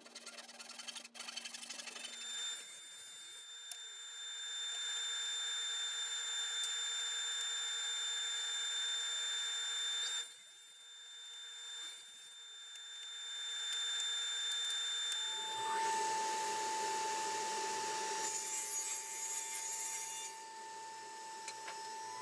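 Table saw running and cutting plywood: a steady whine with the noise of the cut. It dips briefly about ten seconds in, and the pitch and noise change about two thirds of the way through.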